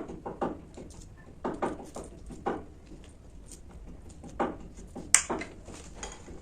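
Close-miked eating sounds: irregular soft chewing and mouth noises, with one sharp click about five seconds in.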